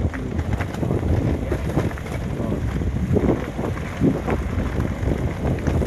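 Wind buffeting the microphone on a moving motorcycle: a steady, rough low rumble.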